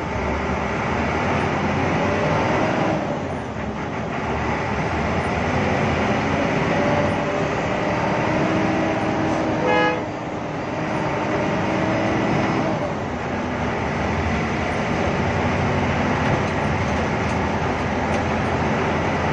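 Hino AK8 bus's turbo-diesel engine running under way, heard from inside the cabin over rain and road noise, its pitch rising and sagging and easing off briefly twice. A short horn toot sounds about halfway through.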